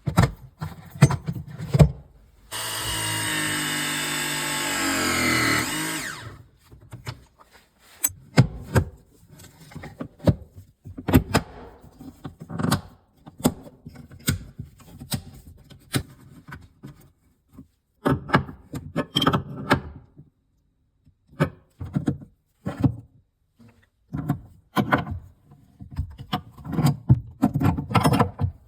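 A battery press-fitting tool runs for about three and a half seconds, crimping a copper press fitting, its motor note changing near the end as it closes. Before and after it come scattered clicks, knocks and rattles of pipe and fittings being handled.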